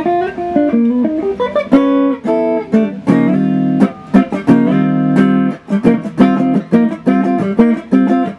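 Electric archtop guitar played with a clean tone: a short single-note melody line, then rhythmic picked chords from about two seconds in. It is the linking passage that follows the tune's melody.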